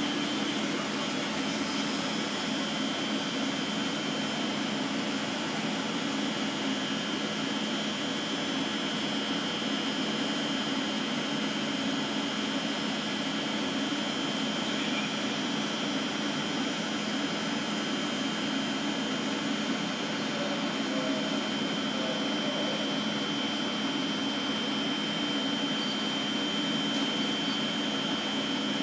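Korail commuter electric train standing at a platform, its on-board equipment giving a steady hum with a thin high whine.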